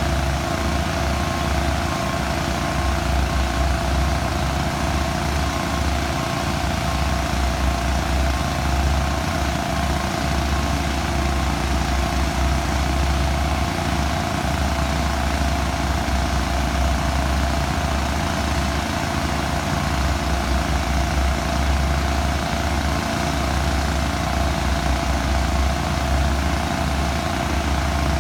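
Engines of heavy construction machinery running steadily, a continuous mechanical drone with a deep rumble.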